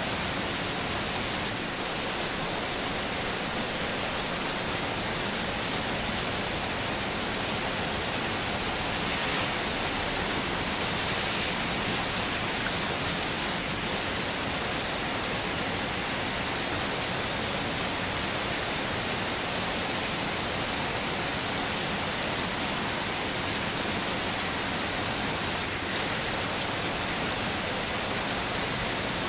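Heavy rain falling steadily, an even hiss of drops with no thunder. It dips briefly three times, about every twelve seconds, as at the seams of a looped recording.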